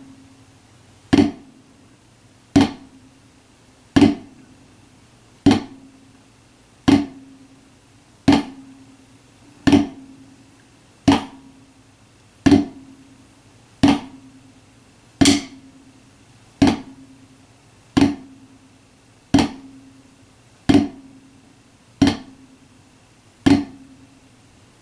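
Slow, even flams played with wooden drumsticks on a rubber practice pad, one every second and a half or so, about eighteen in all. Each flam is a quiet grace note from the low stick with a full stroke from the high stick, alternating hands: little right with big left, then little left with big right.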